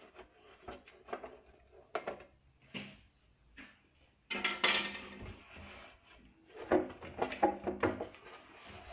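Screwdriver and hands working on the pulley cover on top of a Euro Craft DP 201 drill press: scattered clicks and knocks, then a sudden clatter about four seconds in and more clunks near the end as the cover is freed and lifted off the pulleys.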